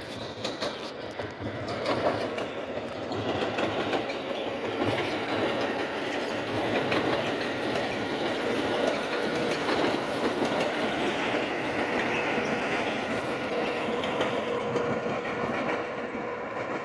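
A train passing, its wheels clicking rhythmically over the rail joints under a steady rumble, with a faint steady whine in the second half.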